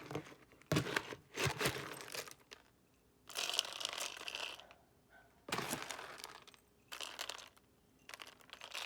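Packaging crinkling and rustling in six short bursts with pauses between, as it is handled while pet food is being served.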